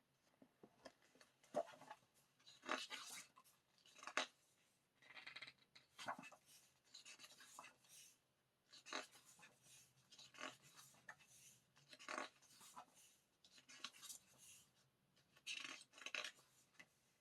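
Faint, irregular rustling and brushing of paper and card: photo book pages and photo cards being handled and turned, in short bursts every second or so.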